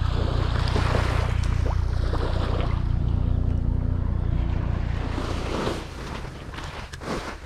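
Surf washing on a sandy beach, with wind rumbling on the microphone; the wind and wash ease about six seconds in.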